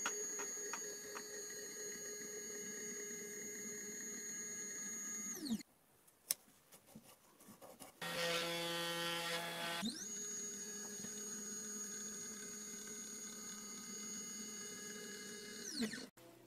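Sainsmart 3018 PROVer CNC's DC spindle motor running with a steady whine, then winding down about five and a half seconds in. After a click and a short pause, the stepper motors whine for about two seconds as the axes jog to the next corner. The spindle then spins up again, runs, and winds down near the end.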